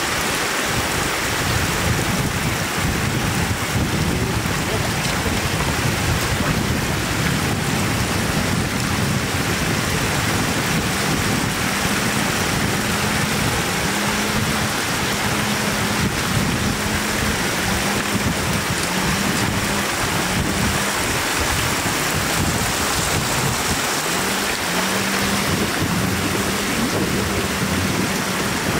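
Floodwater spilling in a shallow sheet over the edge of a paved road, a steady rushing of water.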